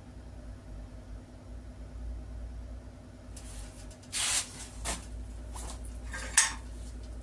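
Sheet steel being worked in a hand-cranked tipping wheel: a brief scraping rasp of metal about four seconds in, a few light ticks, and a sharp metallic clink near the end, over a low steady hum.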